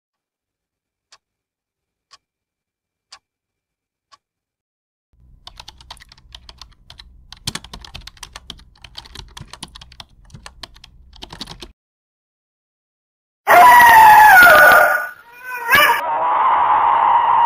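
Typing on a laptop keyboard: a few single key clicks about a second apart, then a run of rapid keystrokes over a low hum. After a short silence, a sudden, very loud sound with a falling pitch, then a steady ringing tone near the end.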